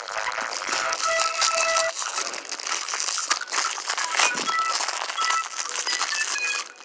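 Plastic figure packaging crinkling and rustling as hands tear and handle it, over light background music with short held notes.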